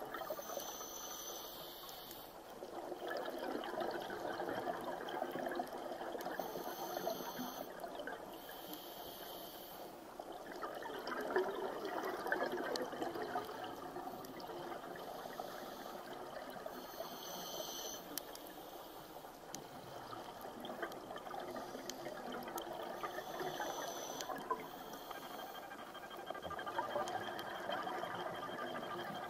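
Seawater moving and trickling: a steady rushing that swells and eases every several seconds.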